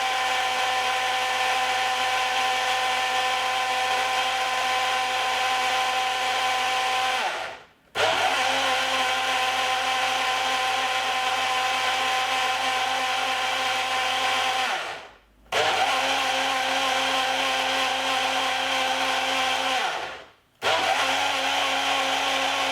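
Countertop blender running on a thick frozen-fruit-and-ice smoothie in stretches of five to seven seconds. It winds down and cuts out three times, restarting each time after about half a second.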